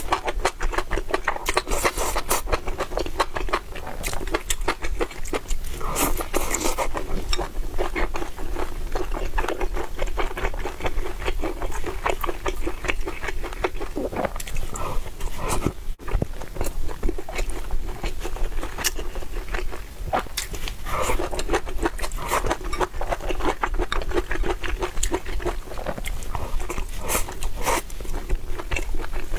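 Close-up eating sounds: steady chewing with dense wet clicks and smacks, mixed with scraping.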